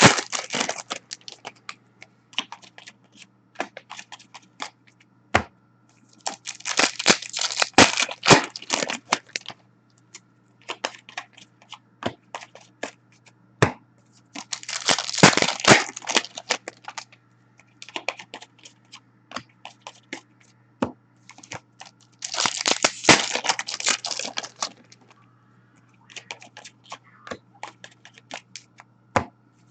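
Upper Deck Series 1 hockey card pack wrappers being torn open, in bursts of crinkling and tearing a few seconds long about every seven or eight seconds. Scattered sharp clicks and rustles of cards being handled come between the bursts.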